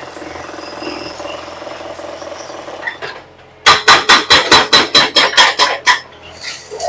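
Excavator-mounted hydraulic breaker hammering concrete. The machine runs steadily for about three seconds, then a fast, even string of about a dozen sharp blows, roughly five a second, lasts a little over two seconds before dropping back.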